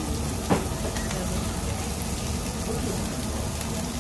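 Meat sizzling on a tabletop Korean barbecue grill, a steady hiss, with one sharp click about half a second in and background voices.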